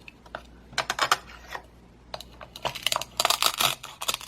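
Plastic toy knife cutting through a Velcro-joined toy mango: small clicks and taps against the cutting board, with crackly Velcro ripping as the pieces are pulled apart, a short burst about a second in and a longer one near the end.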